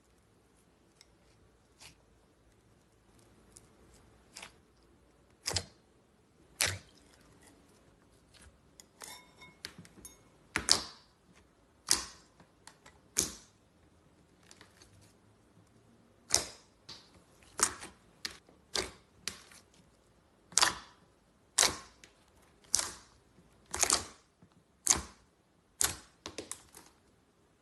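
Slime being pressed and squeezed by hand, making sharp popping clicks at irregular intervals, sparse at first and then about one a second in the second half.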